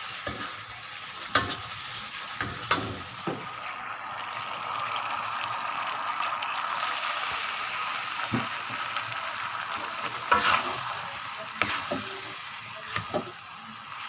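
Mee goreng frying in a pan, a steady sizzle as it is stir-fried, with the spatula knocking against the pan now and then.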